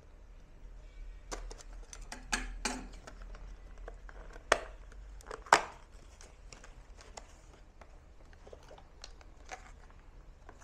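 A small cardboard phono-cartridge box being unboxed: a utility knife slits its seal, then cardboard scrapes and rustles. There are scattered sharp clicks and knocks, the two loudest about four and a half and five and a half seconds in.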